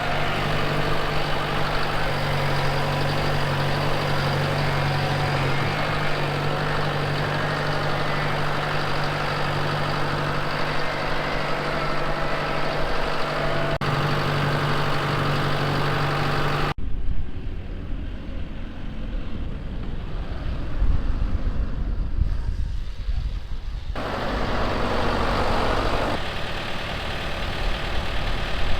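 A farm machine's engine running steadily. About 17 seconds in, the sound cuts abruptly to a duller low rumble with little treble.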